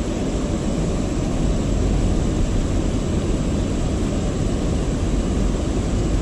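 Steady rushing of a shallow, rocky river, with a low rumble underneath.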